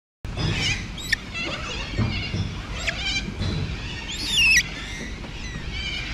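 Birds calling and chirping, with one louder call about four seconds in that falls in pitch, over a steady low rumble.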